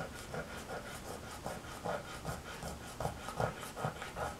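A lottery scratch card being scratched off, short scraping strokes repeating about three a second.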